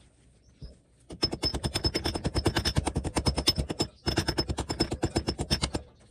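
Rapid metal-on-metal tapping, about ten strikes a second, as a part is driven into a cast vise body. The tapping comes in two runs with a short break between them.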